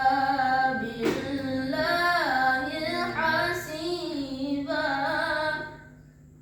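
A child's voice chanting Qur'an recitation in a melodic tilawah style, with long drawn-out notes that bend and ornament in pitch, stopping near the end.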